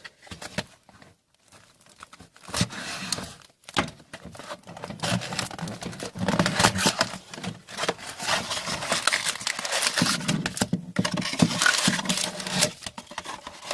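Plastic wrapping being torn and crumpled off a sealed hobby box of trading cards: dense crinkling and crackling that starts about two and a half seconds in and runs on with sharp clicks and rips.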